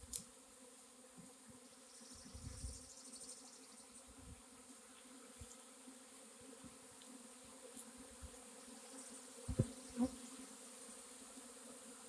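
Honey bee swarm buzzing: the steady hum of many bees in flight around a clustering swarm. Two soft bumps stand out near the end.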